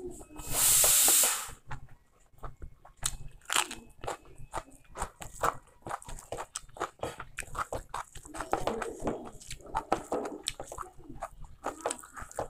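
Close-up eating sounds: fingers squishing and mixing rice with beef curry on a plate, with chewing and many small wet clicks. About half a second in, a loud rushing hiss lasts about a second.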